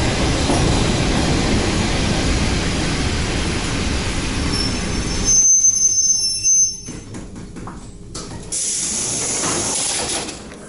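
ED4MK electric multiple unit coming to a stop: the steady rumble of the running gear cuts off about five seconds in, with a high squeal from the brakes and wheels as it halts. A couple of seconds later comes a burst of compressed-air hiss lasting under two seconds.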